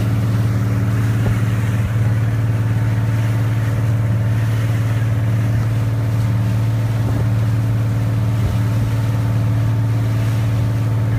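Boat engine running at a steady speed, an even low drone that does not change.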